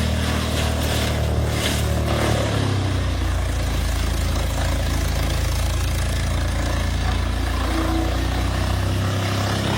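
Wood chipper's engine running steadily under load, its pitch dropping slightly about three seconds in and recovering near the end.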